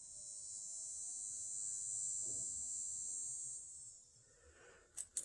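Camera's zoom lens motor whining as it zooms in: a faint, high-pitched whine that swells and then stops about four seconds in. A couple of light clicks of coins come near the end.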